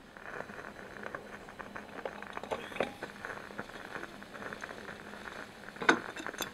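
Sour-cabbage broth bubbling in a miniature copper hotpot, a steady fizzing simmer with many small pops. A few knocks on top, the loudest and sharpest near the end.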